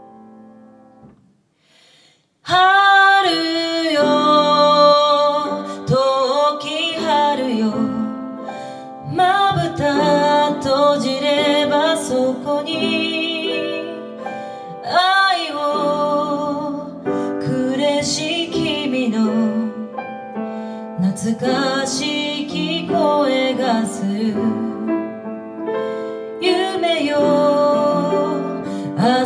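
A woman singing a slow ballad with vibrato over piano accompaniment, after a brief near-pause about two seconds in.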